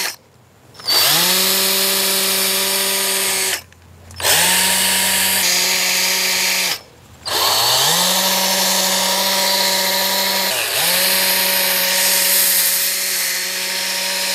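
Power drill spinning an 800-grit sanding pad against a plastic headlight lens, wet-sanding off the oxidised coat. It starts about a second in, stops twice and each time winds back up to a steady speed with a rising whine.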